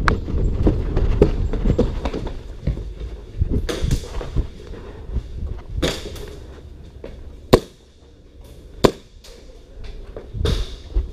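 Airsoft guns firing single sharp shots, a few seconds apart, the loudest two about seven and a half and nine seconds in, over movement thumps in the first few seconds.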